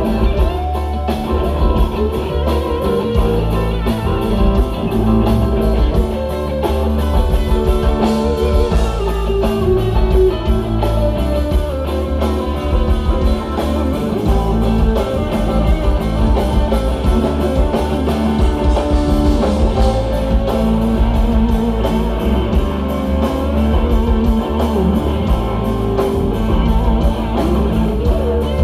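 Live rock band playing an instrumental passage: electric guitar lines with pitch bends over bass guitar, drum kit and keyboard.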